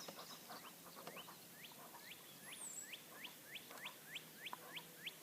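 Faint, regular series of short upward-sliding animal chirps, about three or four a second, beginning about a second in, with one single higher whistle about halfway.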